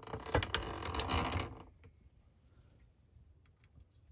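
Metal parts of an antique cast-iron Rival No. 2 apple parer clicking and scraping as the slicer arm is shifted into position by hand. The sound lasts about a second and a half, then only a few faint ticks follow.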